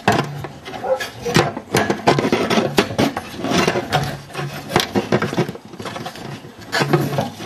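Irregular clicks, knocks and scraping of hard plastic being worked by hand: a plastic clamp and the wiring connectors on a car's in-tank fuel pump module being pried and wiggled loose.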